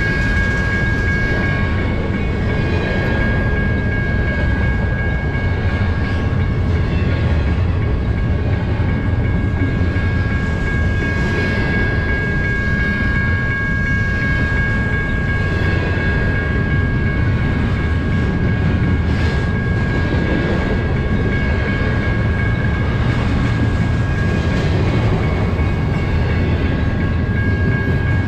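Double-stack intermodal freight train cars rolling past: a steady loud rumble of wheels on rail, with steady high-pitched tones running through it.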